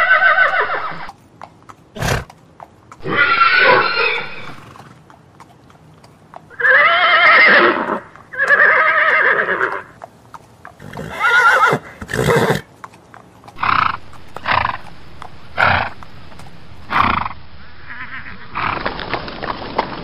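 Horse neighing repeatedly: about five whinnies with a wavering, falling pitch, a few seconds apart. Later comes a string of short knocks about a second apart, and a steady noisy rush begins near the end.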